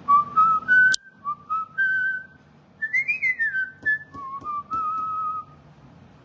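A person whistling a short tune: a single clear note stepping up and down in short phrases, with a quick rise and fall in the middle. There is a sharp click about a second in.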